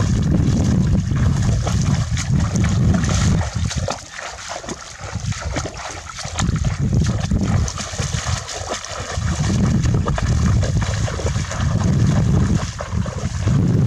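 Legs wading through knee-deep water, with continuous splashing and swishing, and a low rumble in stretches near the start and again in the second half.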